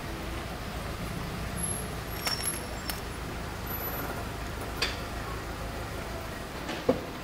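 Town-square street ambience: a steady low hum of road traffic, with a few short sharp clicks or knocks, the loudest near the end.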